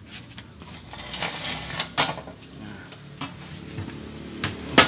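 Scattered metallic clanks and knocks from the scrap-steel frame of a homemade mortising drill stand being handled and shifted, the loudest sharp knock near the end. The drill motor is not running.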